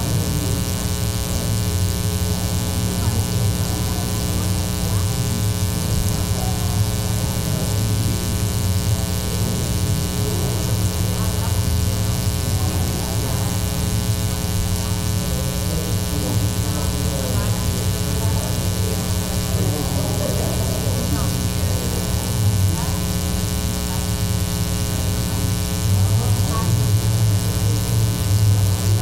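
Loud steady electrical mains hum with a buzzy edge, running unbroken.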